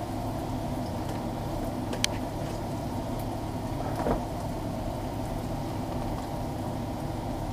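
Steady low rumble and hiss of a stockpot of vegetables and drippings cooking on an electric burner, with a sharp click about two seconds in and a soft knock about four seconds in, as from a spice jar being handled.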